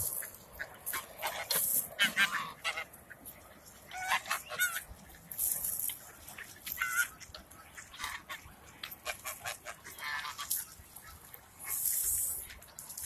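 A flock of white domestic geese honking repeatedly in short, overlapping calls, with several short bursts of rustling noise.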